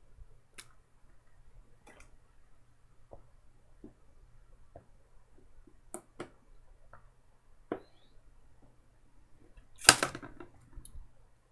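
Scattered small clicks and taps from drinking out of a water bottle with ice in it, with one louder noise lasting about half a second near the end.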